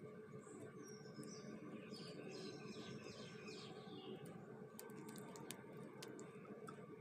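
Small birds chirping in short, high-pitched phrases during the first few seconds, with a run of sharp clicks about five seconds in, over a steady low background noise.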